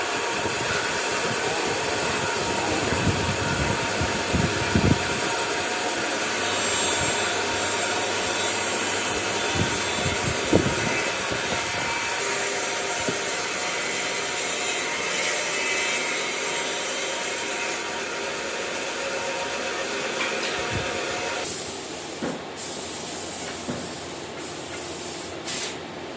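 Wooden lamp-arm parts being handled and fitted together by hand, with a few short wooden knocks, over a steady hiss that drops away about three-quarters of the way through.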